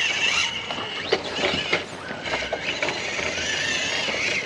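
Small electric motor of an Axial SCX24-based 1/24-scale RC crawler whining, its pitch rising and falling with the throttle, with a few sharp knocks about a second in as the truck climbs over rock.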